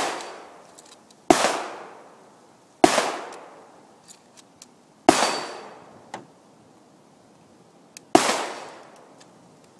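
Four gunshots, a second and a half to three seconds apart, each followed by a long echo that fades out, with a few faint clicks in between.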